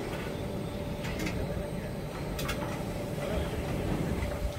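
CNC bearing inner-ring grinding machine running with a steady hum. Two short hisses come about a second in and again near the middle.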